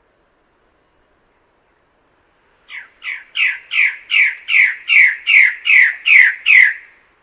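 A bird of paradise calling in a rapid run of about eleven loud calls, each dropping in pitch. The run starts a little over two and a half seconds in, and the first few calls are quieter.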